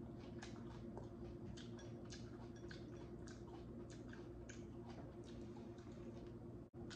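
Faint chewing, with irregular soft wet mouth clicks, over a low steady hum.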